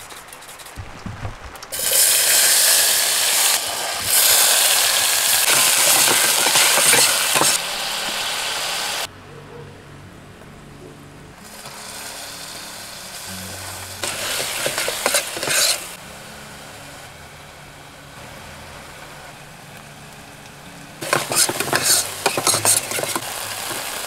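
Chopped vegetables frying in hot oil in a pot on a gas stove. A loud sizzle starts about two seconds in and dies down after several seconds, flares briefly midway, then a crackling sizzle comes back near the end as more food goes into the pot.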